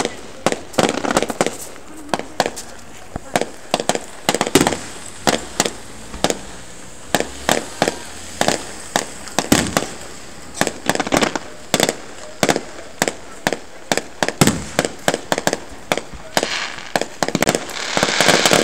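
Aerial fireworks bursting: an irregular run of sharp bangs, at times several a second, with a denser rushing noise building over the last couple of seconds.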